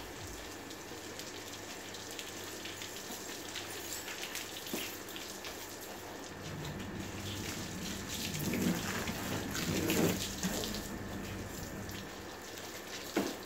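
Water spraying from a garden hose nozzle, splashing on a car's body and dripping onto the paved floor, growing louder about two-thirds of the way through. A short knock near the end.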